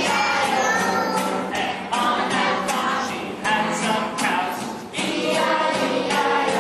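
Acoustic guitar strummed while a group of children sing along.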